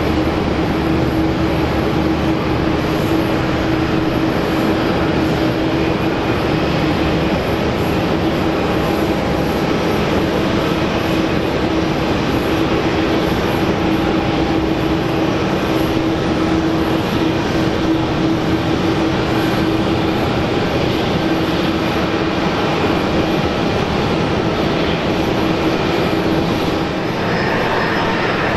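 Airbus A380-861's four Engine Alliance GP7200 turbofans running at taxi power: a steady jet rumble with a constant low whine. The sound shifts a little near the end.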